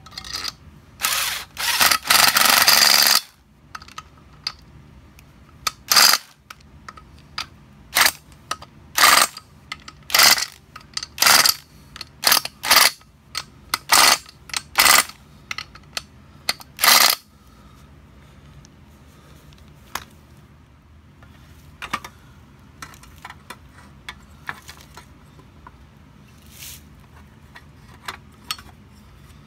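A hand ratchet turned in short strokes, about one a second for some ten seconds, after a longer run of ratcheting near the start, tightening a fastener on the cylinder head of a Briggs & Stratton 4.5 hp engine being put back together. A few lighter clicks of metal tools follow.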